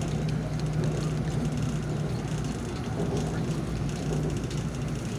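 Inside a light-rail train car running at speed: the steady rumble of the train on the track, with a constant low hum.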